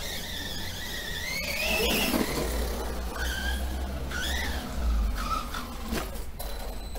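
Brushless electric motor of a Remo Hobby Dinosaurs Master 5 RC monster truck on 3S whining, rising in pitch as the truck speeds up over the first two seconds, then several short throttle blips that rise and fall.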